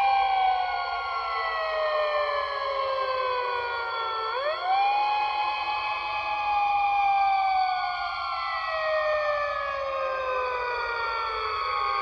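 A siren wailing. Its pitch slides slowly down, sweeps quickly back up about four seconds in, holds briefly, then slides slowly down again, with overlapping tones.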